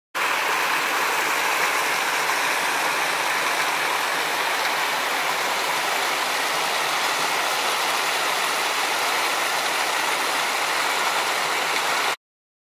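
Small mountain stream spilling over rocks into a pool: a steady rush of splashing water that starts and cuts off suddenly.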